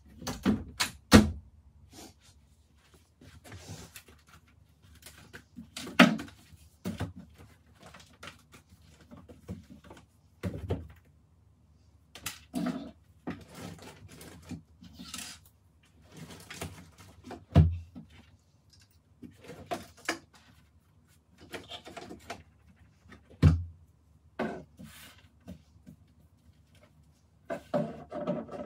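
Handling noises from tidying a bedroom: sharp knocks and clicks from a wooden wardrobe door near the start, then a bedside-table drawer being opened and shut and objects being set down, with soft rustling in between.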